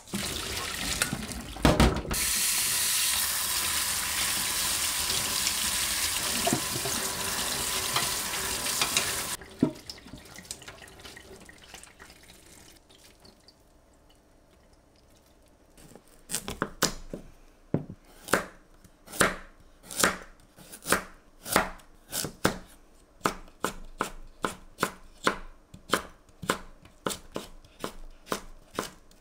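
Kitchen tap water running for about seven seconds, then stopping. After a short lull, a knife chops on a cutting board in a steady rhythm, a little more than one stroke a second.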